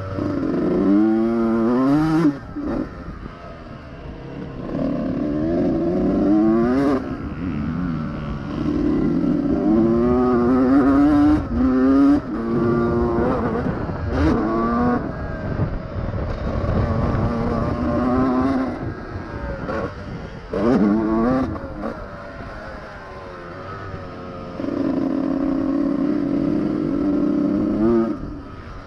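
Honda CR125R two-stroke single-cylinder motocross engine revving hard again and again, its pitch climbing in repeated sweeps as it pulls through the gears and falling away each time the throttle is shut, with a few sharp clatters in between.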